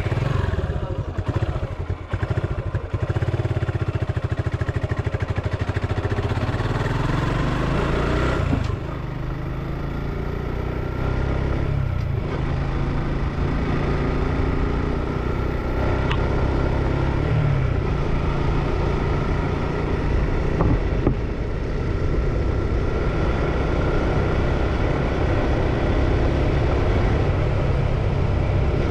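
Motorcycle engine running as the bike is ridden along a paved lane, gathering speed. The engine note changes once about nine seconds in.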